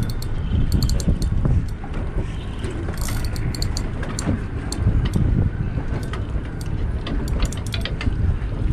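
Wind rumbling on the microphone aboard a boat, with scattered light clicks throughout.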